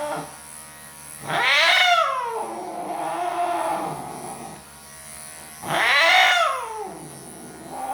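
Cat yowling loudly twice in long, drawn-out calls that rise and then fall in pitch, with a softer moan between them, as it protests being clipped. Electric grooming clippers hum faintly throughout.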